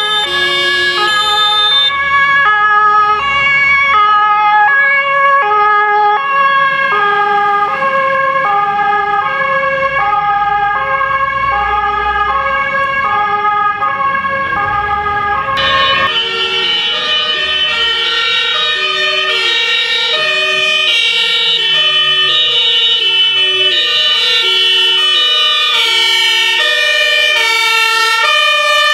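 Several German fire engines' two-tone sirens (Martinshorn) sounding at once, each alternating between a high and a low note, overlapping out of step, with engine rumble underneath. About halfway through, a brighter, sharper-sounding set of horns comes to the front.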